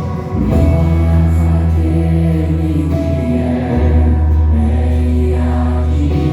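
Worship music: voices singing together over long held bass notes that change about four seconds in.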